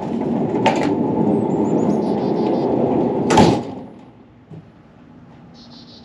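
Steel tool box on a welded steel frame rolling along an angle-iron track on 608 ball bearings: a steady rolling rumble for about three seconds that ends in a loud clunk as it reaches the end of its travel.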